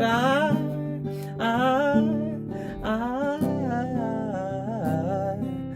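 A man singing long, gliding vowels over a strummed acoustic guitar, a solo song performance.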